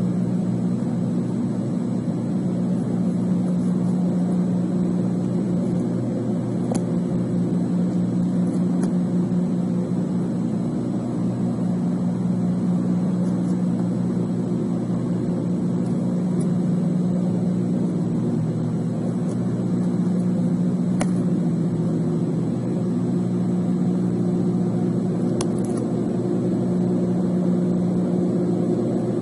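A steady low mechanical hum, like a running engine or motor, made of several even tones, with a few faint clicks about 7, 21 and 26 seconds in.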